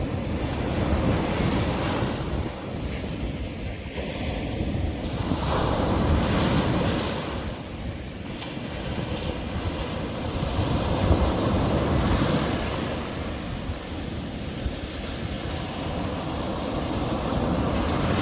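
Sea waves breaking and washing up the beach, surging and receding about every five seconds, with wind rumbling on the microphone.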